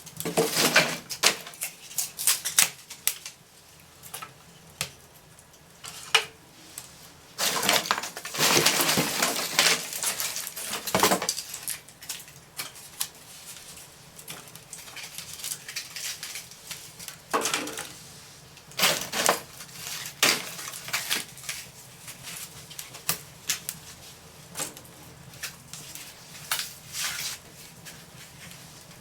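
Wood fire of thin broken crate slats crackling in a fireplace, with irregular sharp pops. There are denser clattering bursts three times, about a second in, around eight seconds and around eighteen seconds, as wood is handled and added.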